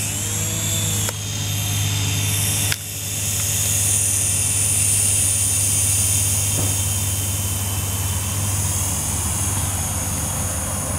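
Syma S107 toy RC helicopter's small electric motors and coaxial rotors running close by, a steady whirring hum with a high whine over it. The sound dips sharply and briefly twice, about one and three seconds in.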